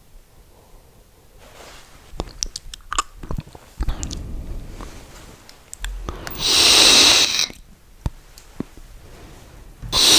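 Small wet mouth and lip clicks, then a loud breathy rush of e-cigarette vapour blown out close to the microphone for about a second. A second rush starts near the end.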